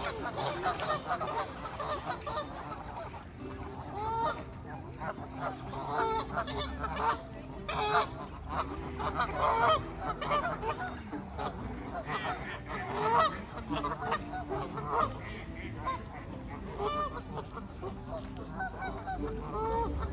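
A flock of Canada geese honking, many short calls overlapping one another throughout.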